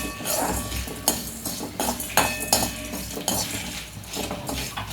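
Metal spoon stirring whole spices (coriander seeds, cumin, black pepper, dried red chillies) as they dry-roast in a kadai with a little oil, making irregular scrapes and clinks against the pan, some with a brief metallic ring.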